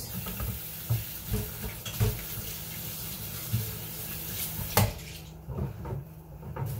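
Kitchen tap running as hands are washed under it, shut off with a click about five seconds in, followed by a few light knocks.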